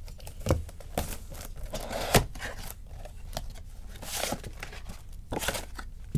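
Plastic shrink-wrap being torn and crinkled off a sealed trading-card box, with an irregular run of crackles and rustles.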